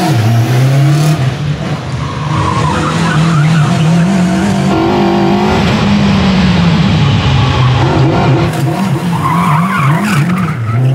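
1964 Honda S600 powered by a 1000cc Honda CBR RR inline-four motorcycle engine, driven hard through an autocross course. The engine pitch drops right at the start, then rises and falls again and again with the throttle. Tires squeal as the car slides around the barrels, about two seconds in and again near the end.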